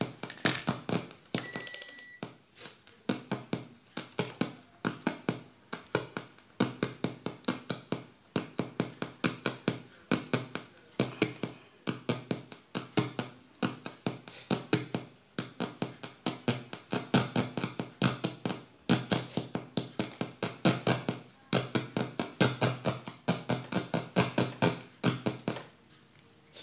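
Music with a fast, steady percussive beat, which cuts off abruptly near the end.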